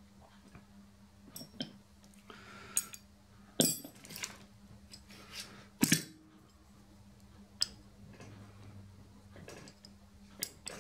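Scattered clinks and taps of small steel hand tools against a steel housing as a large seal is worked into its groove, about eight in all, the loudest two a little over three and a half seconds in and about six seconds in, over a faint steady hum.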